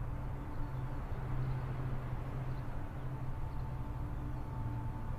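A steady low hum, with a fainter higher tone held above it.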